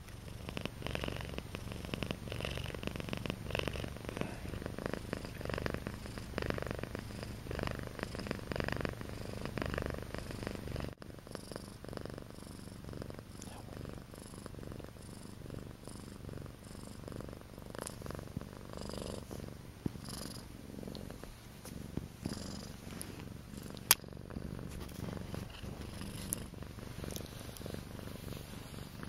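Domestic cat purring steadily, very close, with one sharp click about two-thirds of the way through.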